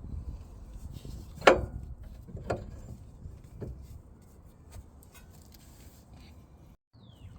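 A few sharp metal knocks and clinks from working a car's front brake caliper off after its bolts are undone. The loudest comes about a second and a half in, with smaller ones roughly once a second after it.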